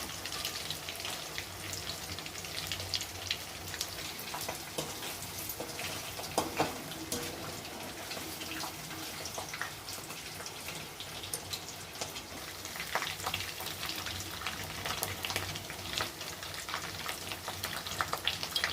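Paneer cubes sizzling and crackling in hot ghee and oil, with scattered clicks and a few knocks from the pan as they are lifted out.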